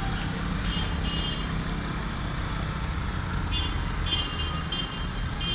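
Cars driving past at a roundabout: a steady low rumble of engines and traffic, with faint high tones coming and going about a second in and again near the end.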